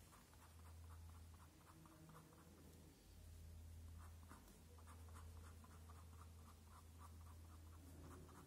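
Faint scratching of an ink pen cross-hatching on paper: quick, short back-and-forth strokes, several a second, with brief pauses, over a low steady hum.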